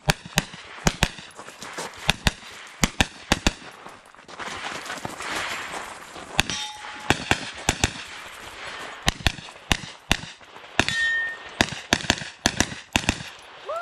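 Rapid gunfire in a practical shooting stage: sharp shots in quick pairs and clusters, with short pauses as the shooter moves between positions. Two short ringing tones stand out among the shots.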